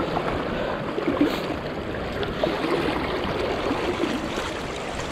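Fast, high river current rushing steadily.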